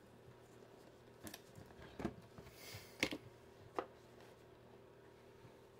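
Faint handling of a hand-stitched leather deck box on a desk: four light knocks and taps spread through, with a brief rustle about halfway.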